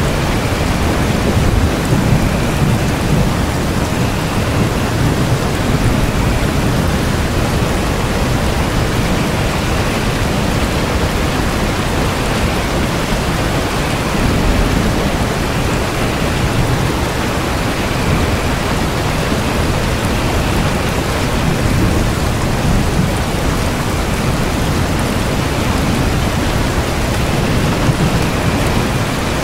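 Steady heavy rain, a dense even hiss, with a low rumble beneath it that swells a few times.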